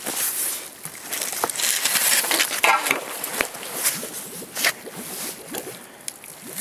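Mud-caked bicycle, just pulled from the canal with a fishing magnet, dragged and handled on a stone quay: irregular scraping, rattling and wet squelching of metal and mud.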